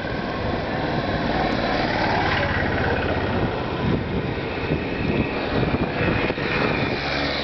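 An engine running steadily with a low, rapid pulse.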